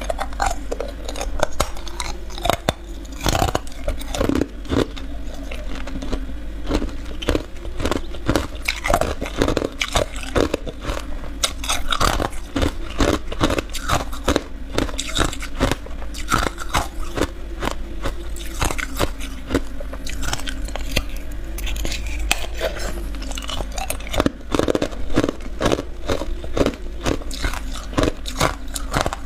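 Clear ice being bitten and chewed close to the microphone: a dense, continuous run of sharp crunches and cracks.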